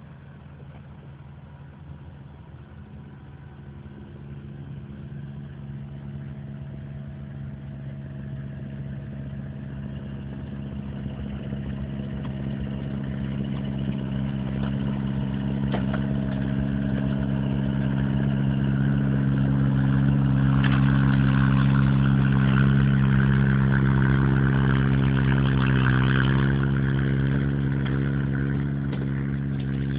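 Valpadana 3014 compact tractor's engine running steadily while it drives a front snow blower through deep snow. It grows louder as the tractor draws near, loudest about two-thirds of the way in.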